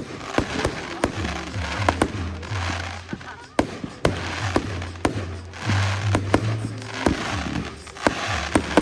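Fireworks going off: irregular sharp bangs, a few every second or so, over a continuous hissing crackle, with music playing underneath.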